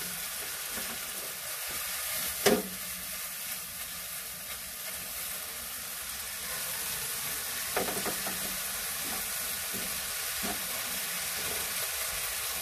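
Sliced ham with sautéed onion, garlic and tomato sizzling in oil in a nonstick frying pan over a gas burner while being stirred with a spatula. The spatula clacks sharply against the pan once a couple of seconds in, and lightly a couple more times later.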